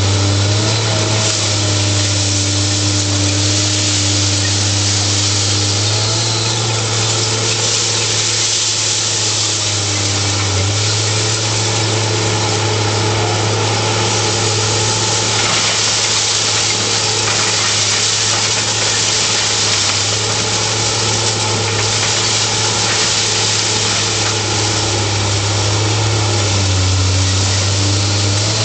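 Heavy diesel engine of a grapple material handler running steadily under hydraulic load, its pitch dropping and rising again a few times, over a constant loud noise of the conveyor and scrap-handling machinery.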